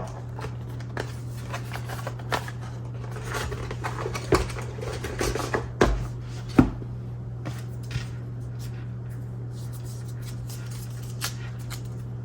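Hands handling unboxing packaging and camera parts: scattered clicks, taps and rustles, busiest about four to six seconds in, over a steady low hum.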